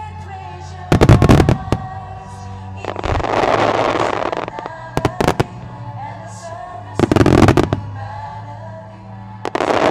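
Starmine fireworks display: clusters of sharp shell bursts about a second in and again around seven seconds, and longer rushes of dense noise around three to four seconds and near the end. Music plays steadily underneath, synchronised with the show.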